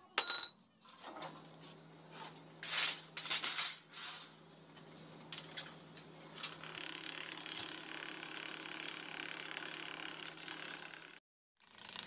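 Sharp metal clinks and knocks, then a steady scraping run as a galvanized sheet-metal ring is turned through the rollers of a hand-cranked rolling machine, over a low steady hum. The sound cuts off abruptly near the end.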